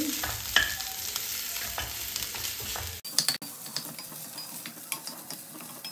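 A wooden spatula stirring and scraping boiled potatoes and spices in a stainless-steel kadai, with a low sizzle from the pan. About three seconds in the sound breaks off suddenly and carries on quieter, with a few scrapes.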